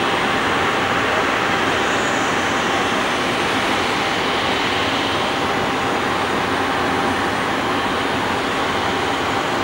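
Airbus A340-300's four CFM56 jet engines running steadily as the airliner rolls down the runway for take-off.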